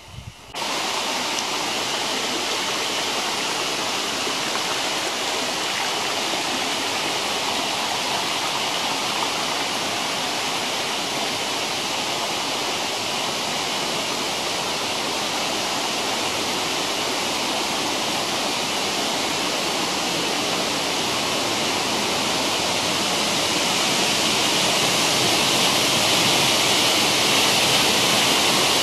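Mountain stream and waterfall rushing steadily, the sound growing a little louder over the last few seconds.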